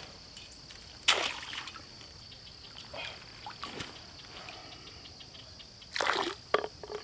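Water splashing at a pond's edge: a splash about a second in as the crawfish trap is dropped back into the water, then sloshing near the end as a bottle is dipped in and filled from the pond.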